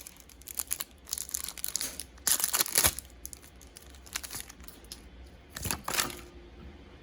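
Pokémon booster pack's foil wrapper being crinkled and torn open. It makes scattered crackles, with two louder bursts about two and a half and five and a half seconds in.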